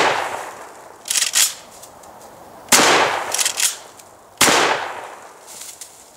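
Franchi SPAS-12 12-gauge shotgun fired in pump-action mode: the echoing tail of a shot at the very start, then two more shots about 1.7 s apart, each fading away over about a second. Between shots comes the quick double clack of the pump being racked back and forward to chamber the next shell.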